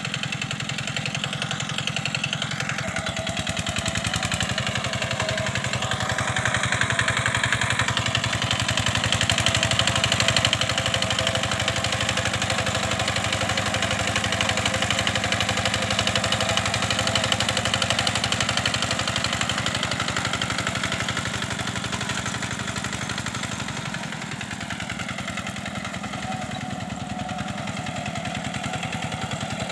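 A two-wheel hand tractor's single-cylinder diesel engine runs steadily under load as it plows flooded paddy mud. It grows louder as the machine comes near, about a third of the way in, and fades somewhat as it moves away near the end.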